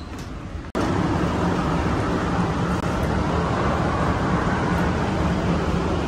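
Shopping cart rolling over a concrete store floor: a steady rolling rumble with a low hum underneath. It starts abruptly under a second in.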